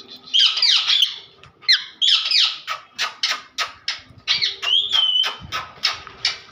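Pet parrot squawking: a few harsh, sweeping calls, then a run of sharp clicks at about three a second, and a short held whistle a little after the middle.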